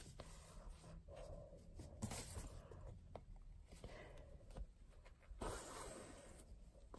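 Near silence with a few faint taps and rustles from hands handling ribbon embroidery on linen in a wooden hoop.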